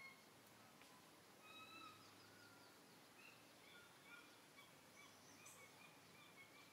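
Faint, short high-pitched animal calls over a near-quiet background: one brief group about a second and a half in, then a string of short repeated calls through the second half.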